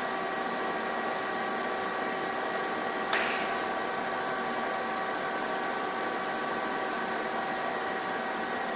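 TIG welding arc on steel airframe tubing: a steady hiss with a few constant whining tones. There is one sharp crackle about three seconds in.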